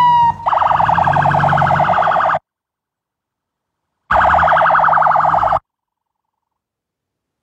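Police vehicle siren: a falling wail ends just as it begins, and the siren switches to a fast pulsing warble. The warble comes in two bursts of about two seconds and a second and a half, each cutting off abruptly into dead silence.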